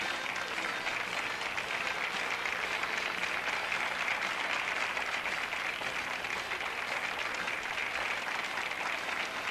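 A large crowd applauding steadily, a dense, even clapping.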